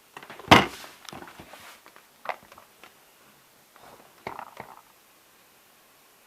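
A few handling knocks and rattles, the loudest a sharp knock about half a second in, with smaller clatters around two and four and a half seconds.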